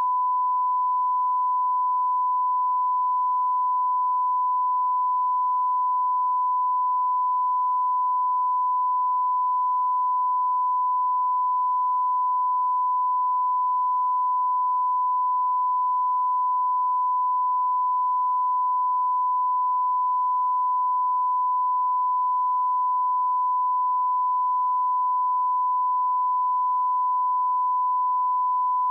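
Steady 1 kHz test tone on the audio feed: one pure, unbroken pitch at constant level, the reference tone used for setting audio levels.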